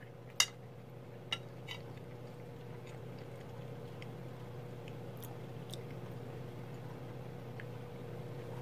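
A person chewing a mouthful of cooked vegetables, with a few sharp clicks in the first two seconds, the loudest about half a second in, over a steady low hum.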